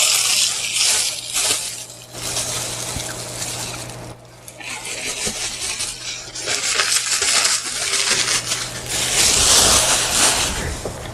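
Close-miked eating sounds: chewing and mouth smacking in repeated bursts of crisp, crackly noise with short pauses between them.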